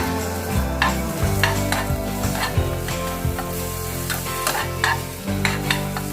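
Beef sizzling in a pan of hot olive oil while a utensil stirs and scrapes it, clinking against the pan every second or so. Quiet background music plays underneath.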